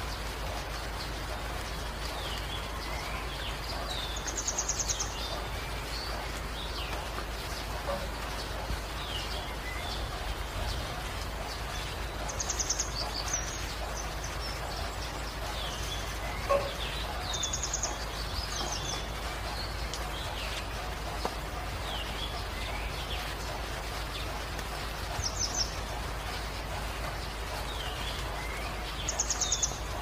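Steady rain hiss with birds calling over it: a short, high trill recurs about five times, every few seconds, among scattered quick falling chirps.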